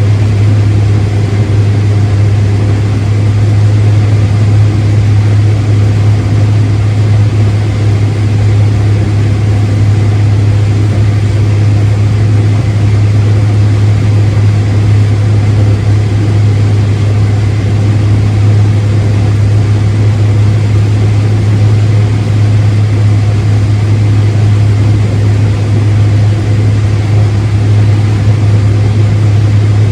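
Large diesel farm machine engine running steadily at constant speed, a loud low hum with no change in pitch.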